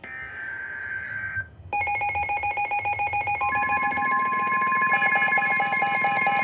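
Emergency alert tones on a weather radio broadcast. The first second and a half is screeching digital data bursts, the SAME header. From about two seconds in, a loud, rapidly pulsing electronic alarm sounds, joined about halfway through by a steady high tone, the NOAA Weather Radio warning alarm that signals a new warning is coming.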